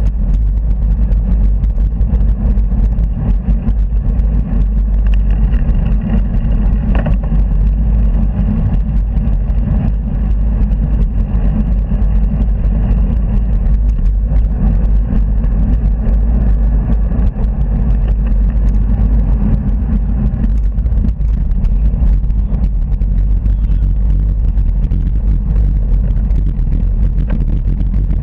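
Steady low rumble of wind and road noise on a bicycle-mounted camera riding along a main road, with cars passing close by.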